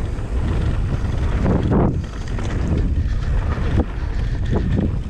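Wind buffeting the microphone over the rolling noise of a Canyon Spectral 29 mountain bike's tyres on a dirt trail at speed, with a few sharp knocks from the bike over bumps and landings, about two seconds in and twice near the end.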